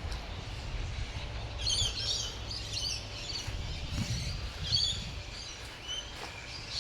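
Wild birds chirping in short clusters of quick high notes, several times, over a steady low rumble of outdoor background noise.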